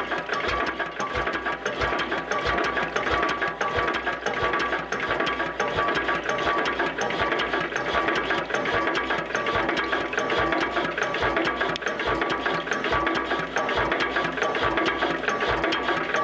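Slavia D15 15 HP stationary diesel engine running steadily, with a fast, even mechanical clatter and a steady whine on top.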